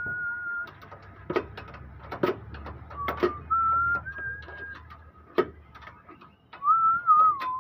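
A person whistling a wandering tune in short held and gliding phrases, broken by a few sharp clicks and knocks.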